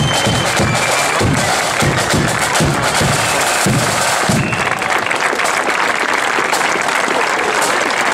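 Marching band playing, with steady bass-drum beats, side drums and a few high held notes. After about four and a half seconds the low drum beats stop and crowd applause carries on.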